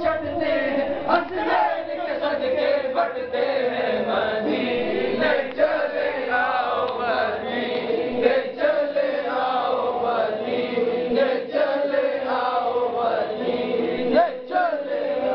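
A man reciting a naat, Islamic devotional poetry, in an unaccompanied melodic chanting voice.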